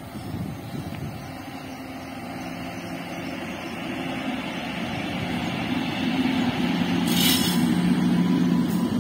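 Electric locomotive hauling ICF passenger coaches approaches and passes at speed: its steady low hum and the rumble of wheels on the rails grow louder throughout. There is a short hiss about seven seconds in.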